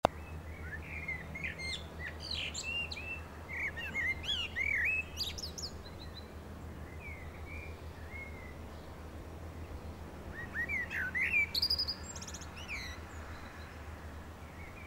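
Small birds chirping and twittering in two bouts, the second starting about ten seconds in, over a steady low hum.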